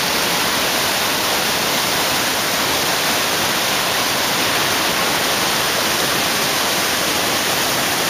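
Kivach waterfall on the Suna River rushing, a steady, unbroken sound of falling water.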